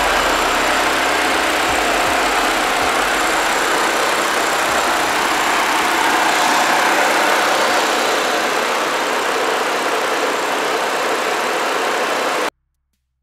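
Chevrolet Tornado's four-cylinder engine idling steadily, heard close up under the open hood. The sound cuts off abruptly near the end.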